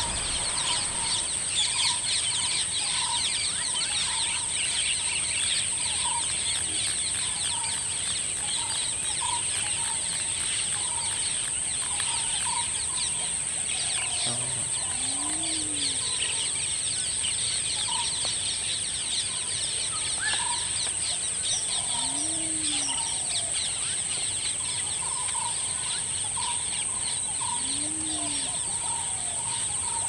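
Countryside bird chorus: many birds chirping, with one short call repeating every second or two. It sits over a steady high-pitched drone, and three low calls come in the second half.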